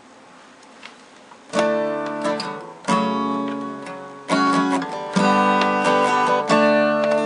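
Acoustic guitar strummed: about five chords, each struck once and left to ring out, starting about one and a half seconds in after a faint hiss.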